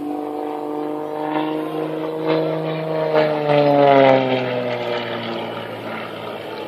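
Propeller engine of a single-engine aerobatic stunt plane droning overhead. It grows louder to a peak about four seconds in, then drops in pitch and eases off.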